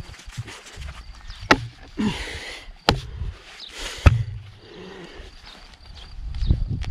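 Three sharp knocks about a second and a half apart, among rustling and a low rumble.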